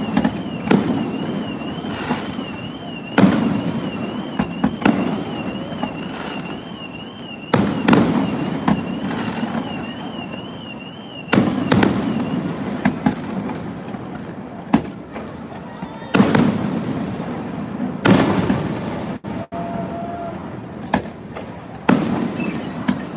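Aerial fireworks display: a string of loud bangs, one every second or two, each trailing off in a rumbling echo. A warbling high-pitched tone, like an alarm, runs under the bangs through the first half and then stops.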